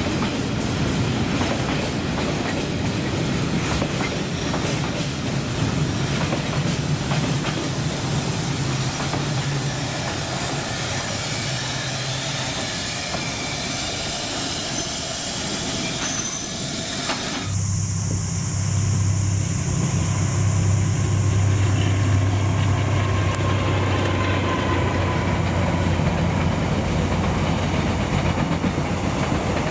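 Container freight train wagons rolling past close by, with a rushing noise and the clatter of wheels over the rails. About two-thirds of the way through, the sound changes abruptly to a passenger train running past, with a steady low hum under the rolling noise.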